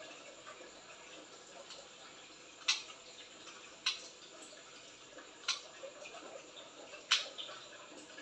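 Four sharp plastic clicks, a second or more apart, as scissors snip at a plastic slide binder to cut it shorter, over a faint steady hiss.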